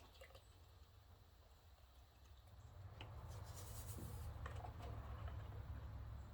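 New full-synthetic motor oil being poured from a jug through a funnel into the engine's oil filler. A few faint handling clicks come first, then a low, steady pouring noise builds from about halfway in, with a brief hiss in the middle.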